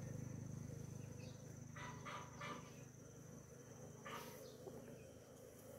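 Faint low hum of honeybees from an open wooden box hive, fading over the first second or so. A few short bird chirps come around two and four seconds in, over a thin steady high tone.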